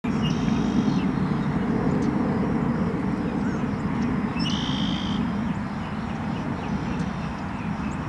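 Steady low engine rumble, with two short, high bird calls, one at the start and one about four and a half seconds in.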